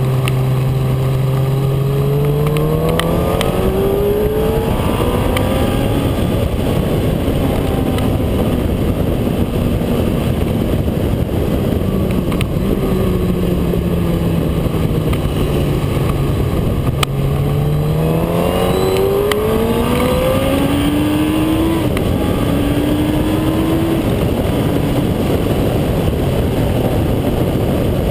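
Motorcycle engine heard from on board at speed. Its pitch climbs in steps as it accelerates through the gears, falls away slowly as it eases off, then climbs in steps through the gears again. Heavy wind rush is on the microphone throughout.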